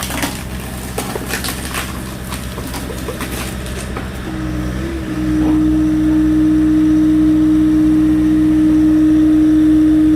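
Machine engine running steadily while it drives a hydraulic log splitter, with sharp crackling clicks over the first few seconds. About four seconds in, a steady loud hum sets in and the whole sound grows louder.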